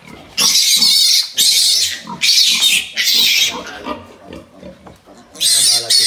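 Newborn piglets squealing loudly and shrilly in repeated half-second bursts as they are chased and caught by hand. Four squeals come in quick succession, then after a short pause more begin near the end.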